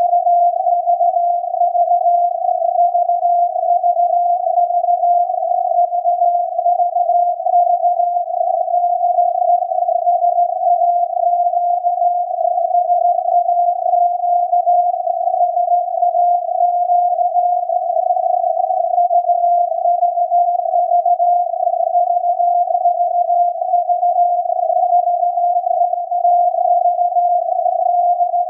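SAQ's Alexanderson alternator transmitting Morse code on 17.2 kHz, received on a software-defined radio and heard as a tone of about 700 Hz inside a narrow band of static. It is the automated punched-tape message "VVV de SAQ".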